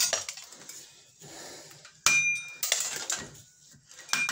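A three-leg puller being wound in with a ratchet handle on a Ford Transit front wheel hub: metal clicking and scraping, with a sharp ringing ping about two seconds in and another near the end as the pressed-on wheel bearing gives under the puller's load.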